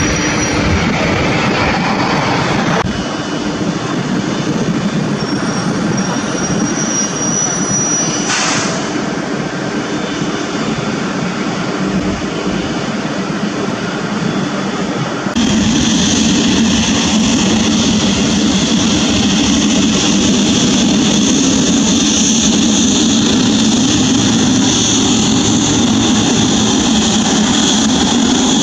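Boeing 777-300ER's GE90 jet engines running as the airliner rolls out on a wet runway, a steady dense engine noise. About halfway through it jumps louder, with a steady high-pitched whine over the rumble as the jet taxis closer.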